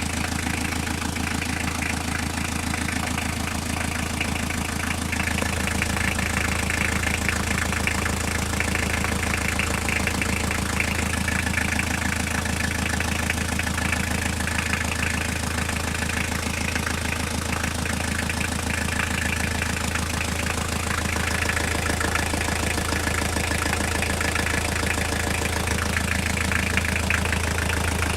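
Toyota diesel engine idling steadily with a rapid, even knocking. The source of the knock is unknown to the owner.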